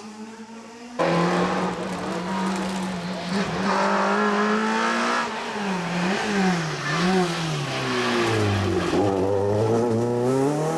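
Rally car engine under hard load, cutting in abruptly about a second in. The revs hold steady, dip and rise twice in quick succession, drop low near the end, then climb again as the car accelerates.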